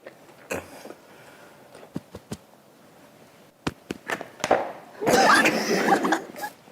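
A few sharp hand smacks in a hushed room, one person hitting the next in quick succession. About five seconds in comes a loud burst of voices.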